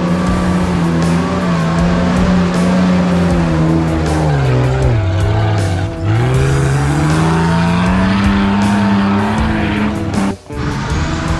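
Off-road 4x4 rig's engine running hard under load, its pitch sagging about halfway through as it bogs down, then climbing back up to high revs. The sound drops out briefly near the end.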